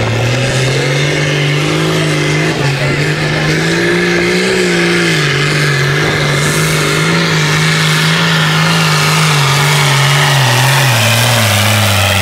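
A John Deere farm tractor's diesel engine at full throttle, pulling a weight-transfer sled and blowing black smoke. The pitch climbs over the first few seconds, then slowly sags lower toward the end as the engine labours under the load.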